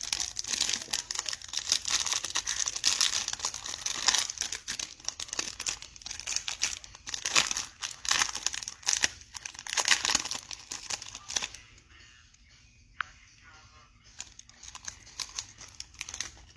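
Plastic wrapper of a trading card pack crinkling and tearing as it is opened by hand. After about eleven seconds the crinkling stops, leaving only light handling of the cards with a few small ticks and a brief squeak.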